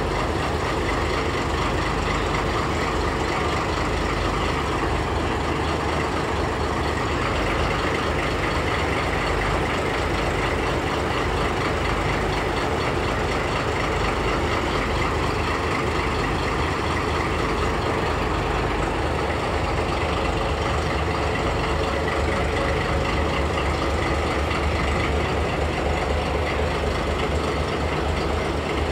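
DD13-551 diesel locomotive idling close by, its engine running at a steady low throb that does not change.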